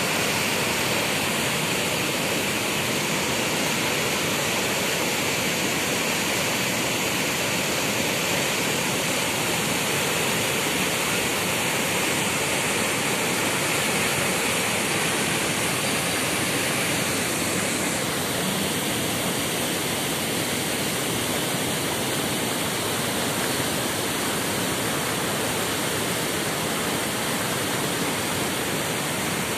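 Muddy floodwater pouring over a low weir in a swollen stream: a loud, steady rush of water.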